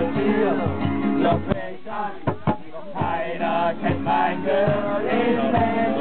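Campfire music: men singing with a rhythmic instrumental accompaniment. A short break about a third of the way through holds a few sharp knocks.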